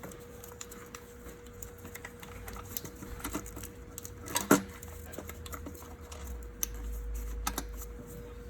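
Scattered light clicks and clinks of engine parts and wiring connectors being handled, with one louder knock about four and a half seconds in, over a faint steady hum.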